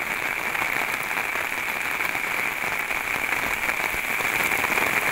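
Heavy rain pouring down steadily: a dense, even hiss of rain.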